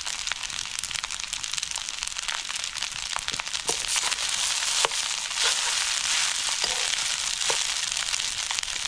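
A steady sizzling hiss with scattered crackles and pops, a few of them louder near the middle.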